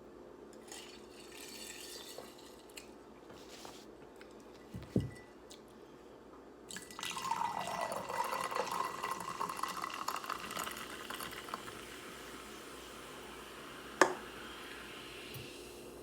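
Liquid poured into a glass for about four seconds, with a ringing tone that drops and then holds. A dull thump comes before it and a sharp click near the end.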